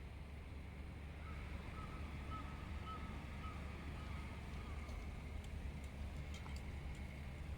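City street ambience: a steady low rumble, with a faint wavering tone starting about a second in and lasting about three seconds, then a few light clicks near the end.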